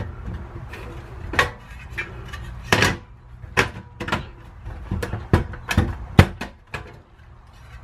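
Metal pan-support arms of a portable single-burner butane stove clicking and clanking as they are turned and set by hand, about half a dozen sharp knocks.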